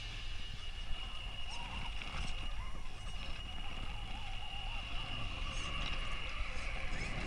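Axial Wraith RC rock crawler climbing loose rock, its electric drive giving a faint steady high whine that fades out near the end, with small clicks and crunches from the tyres and stones.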